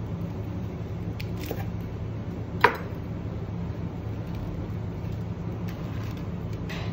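Steady low hum in a kitchen, with light handling of food and plates and one sharp clink of crockery about two and a half seconds in.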